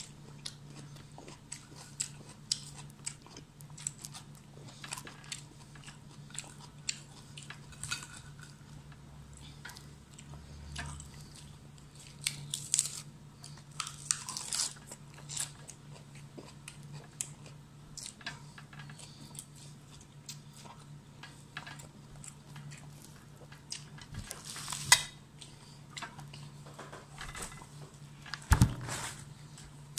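A person biting and chewing crunchy food, with scattered short crunches and mouth sounds over a steady low hum. A couple of louder knocks come near the end.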